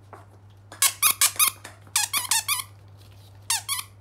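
A mesh-covered squeaky dog toy squeezed by hand, giving three quick runs of loud high squeaks.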